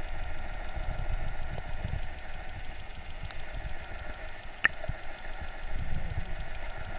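Muffled underwater noise picked up through a camera's waterproof housing: a low, uneven rumble of water moving against it over a steady faint hum, with one sharp click a little past halfway.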